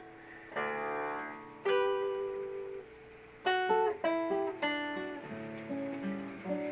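Background music: an acoustic guitar picking and strumming chords, each chord ringing and fading before the next.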